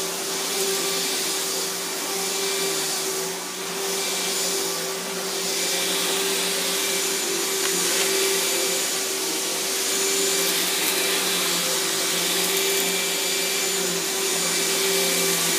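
Riccar 10-amp bagged vacuum cleaner running steadily while vacuuming, a constant motor hum over the rush of air, with slight dips in level a few seconds in.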